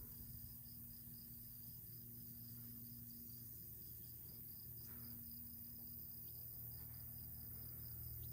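Faint, steady high-pitched insect chirping in a continuous rapid pulsing trill, of the kind crickets make.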